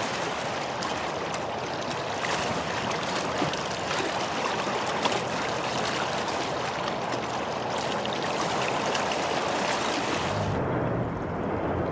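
Steady rush of flowing river water. About ten seconds in, the hiss gives way to a duller, lower rumble.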